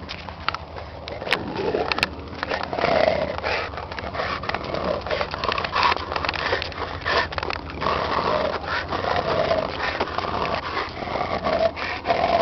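Kennel dogs, American Bully pit bull type, making short scattered vocal sounds among repeated clicks and knocks, over a steady low hum.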